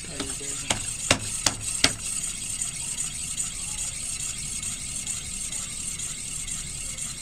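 Front wheel with a newly fitted floating brake disc spun by hand, giving four sharp ticks less than half a second apart about a second in, then turning on quietly. The disc is being checked for a bend, which the owner suspects it picked up in shipping.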